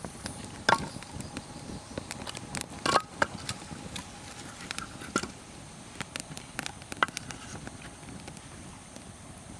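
Wood campfire crackling with many small scattered pops over a steady hiss, and a few louder sharp cracks or knocks, at about one, three, five and seven seconds in.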